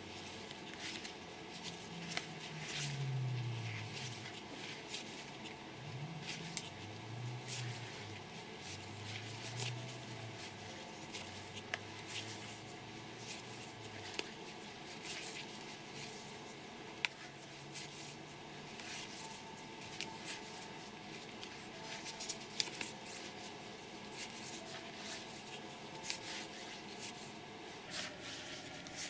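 Magic: The Gathering cards being flicked through by hand, each card slid off the front of the deck: a steady run of light card clicks and snaps. A low hum comes and goes in the first half.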